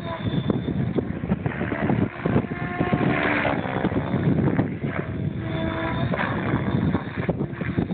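Radio-controlled model helicopter flying overhead, its motor and rotor whine faint and shifting in pitch under gusty wind noise on the microphone.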